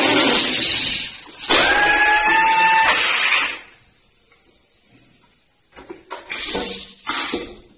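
WPM A19 handheld pneumatic combination steel strapping tool working a steel strap: its air motor runs with a loud hiss and a sinking whine that ends about a second in, then runs again with a steady whine for about two seconds. After a pause come a few clicks and two short blasts of air as the tool seals and cuts the strap.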